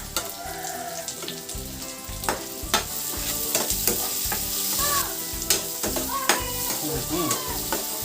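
Chopped vegetables sautéing in hot oil in a pan, sizzling steadily, while a spatula stirs them with frequent sharp clicks against the pan.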